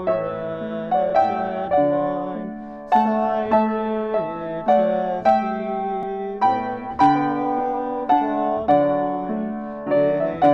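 Piano playing a slow piece in full chords, each chord struck and left to fade before the next.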